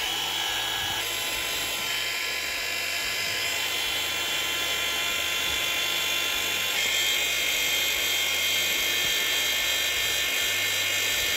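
Small handheld heat gun running steadily, its fan and motor blowing hot air onto a plastic pickguard to soften it. The steady whine shifts slightly about a second in and again about two-thirds of the way through.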